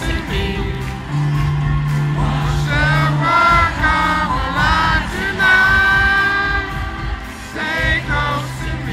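Live pop music with singing over a band, played loud through a large arena's sound system and heard from the crowd; a long held sung note comes in the middle over a steady beat and held bass notes.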